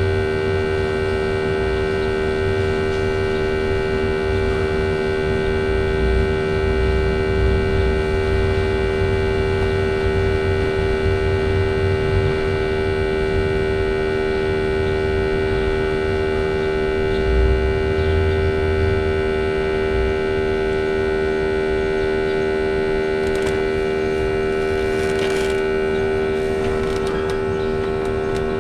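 Small air pump of a budget automotive smoke tester running with a steady electric hum, pushing smoke into the intake to find vacuum leaks. A few light clicks near the end.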